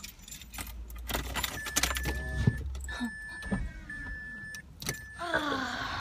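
A car's warning chime beeping, about four steady high beeps each under a second long, with keys jangling and door clicks as the car is got out of. A low rumble stops about halfway through.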